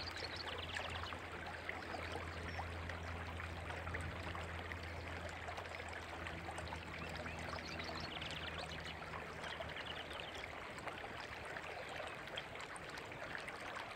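A river running steadily, an even rush of water.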